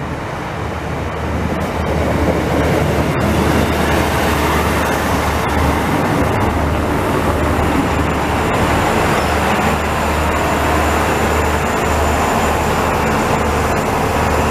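NI Railways Class 3000 diesel multiple unit running into the platform and drawing to a stop. Its underfloor diesel engines give a steady low drone under the rumble of the train, which grows louder over the first couple of seconds as it draws level.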